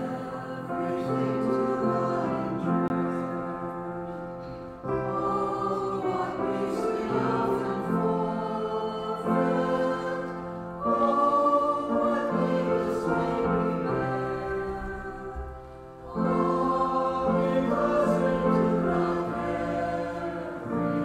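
A choir singing a slow piece in sustained chords, its phrases breaking off and starting again about every five seconds.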